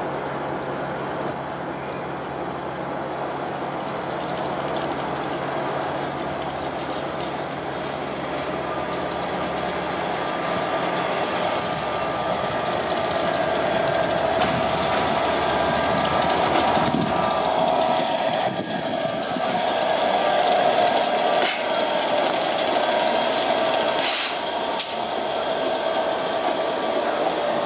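Class 67 diesel-electric locomotive drawing slowly past with its coaches, its two-stroke V12 engine a steady drone that grows louder as it nears. A few sharp wheel clicks come near the end as the coaches roll by.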